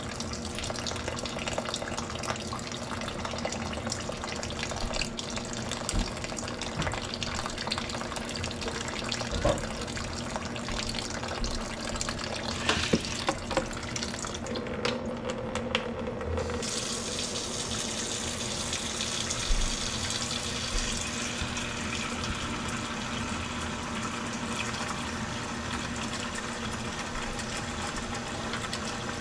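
Kitchen faucet running steadily into a sink, with a few knocks and splashes as hands move peaches in a pot of ice water. About halfway the hiss of the water drops out for a couple of seconds, then comes back brighter as the stream fills a plastic bowl.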